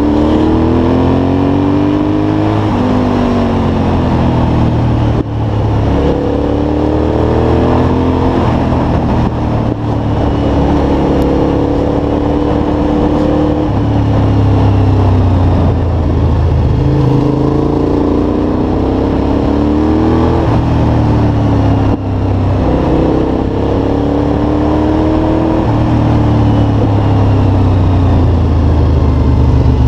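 Cagiva Raptor's V-twin engine heard from the rider's seat, pulling hard up through the revs again and again and falling off between pulls as the rider shifts gear or rolls off the throttle, with short breaks in the sound at the gear changes.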